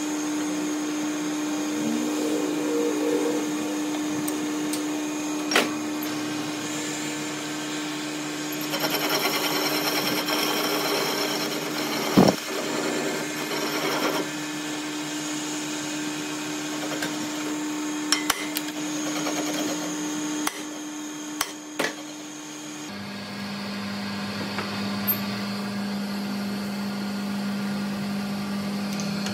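Metal lathe running with a steady motor hum, and a louder stretch of metal cutting about 9 to 14 seconds in as the tool faces the end of a steel shaft. Several sharp knocks are scattered through, and about three-quarters of the way through the hum drops to a lower steady pitch.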